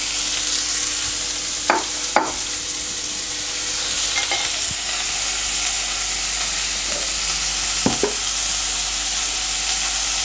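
Freshly added chopped onions sizzling in hot oil in a kadai, a steady frying hiss. A few short knocks come about two seconds in and again near eight seconds.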